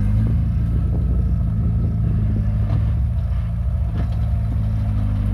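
Caterpillar bulldozer's diesel engine running steadily, with a few short knocks over it.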